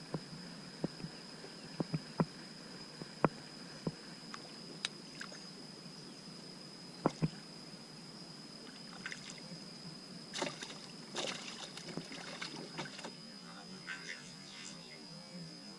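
A small boat on the water: sharp wooden knocks against the hull, then paddle strokes and water splashing from about nine seconds in. A steady high-pitched tone runs underneath.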